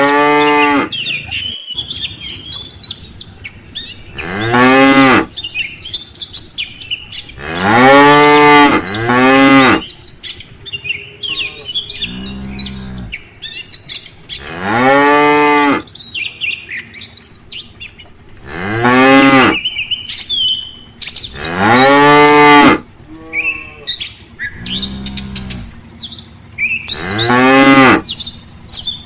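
A herd of cattle mooing again and again, one long call every few seconds, the pitch arching up then down, a couple of the calls deeper and lower. Small birds chirp in the pauses between the calls.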